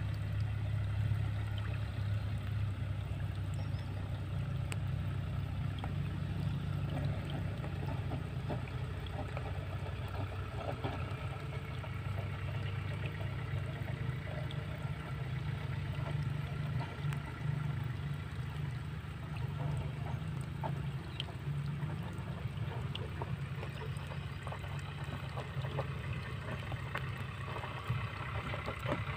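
A steady low droning hum, with faint scattered clicks.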